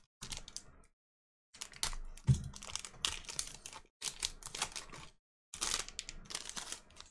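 Foil wrapper of a 2020 Topps Gypsy Queen baseball card pack crinkling and tearing as it is ripped open by hand. It comes in crackly runs of a second or two, with a sharp knock about two seconds in.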